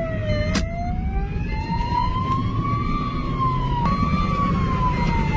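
Police siren in a slow wail, its pitch rising for about two and a half seconds and then falling, heard from inside a car over a heavy low rumble of engine and road.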